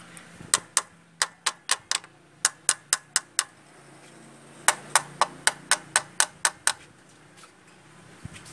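Hammer blows in two quick runs, about four a second: roughly a dozen sharp, ringing strikes, a pause of about a second, then nine more.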